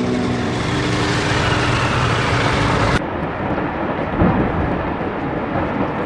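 Four-engine DC-6 propliner's radial engines and propellers running, their steady drone fading out about half a second in and leaving a broad rushing noise. About three seconds in the sound cuts abruptly to a duller rushing noise with one short knock.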